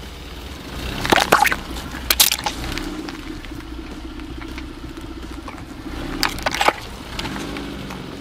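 Car tyre rolling slowly over small liquid-filled plastic bottles on asphalt, crushing them with sharp cracks and pops about a second in and again around two seconds in. A second cluster of cracks comes near six and a half seconds as the tyre rolls back over the flattened bottles, with a steady low hum between.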